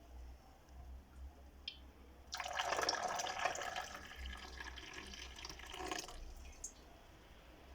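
Water running from a tap and splashing, louder for about four seconds in the middle, with quieter drips and splashes before and after.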